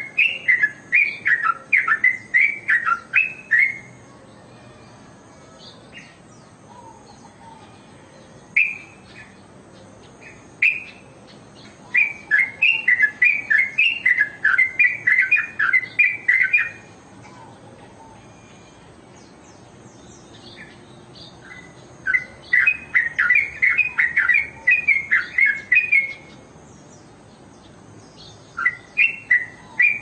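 Caged yellow-vented bulbul (trucuk) singing: phrases of rapid chattering notes lasting a few seconds each, coming about every ten seconds, with a few single notes in the pauses.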